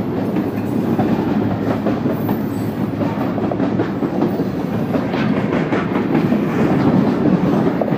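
Freight cars of a passing train rolling by close up, a steady heavy rumble with the wheels clacking and rattling over the rails.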